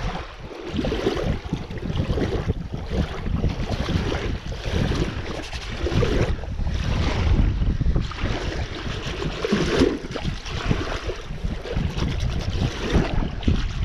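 Wind buffeting the microphone, with shallow lake water lapping and splashing as hands swish through it at the shoreline.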